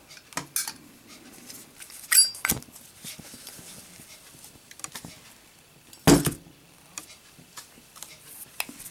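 Street-chrome Zippo lighter with a steel insert being drop-tested: scattered metallic clicks and clinks, one ringing briefly about two seconds in, and a heavier knock about six seconds in.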